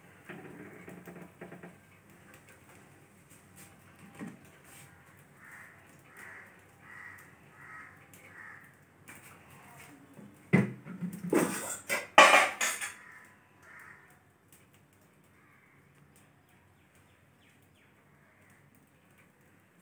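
A crow cawing over and over, about six caws a little under a second apart. Then, about halfway through, a loud clatter of metal cookware lasting a couple of seconds.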